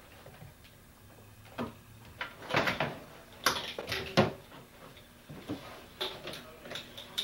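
Knocks, clatters and light rattles of a folded Bike Friday bicycle being pushed into a hard plastic suitcase, the frame, wheel and cables bumping against the case. The loudest bumps come about two and a half to four seconds in, with lighter ticks near the end.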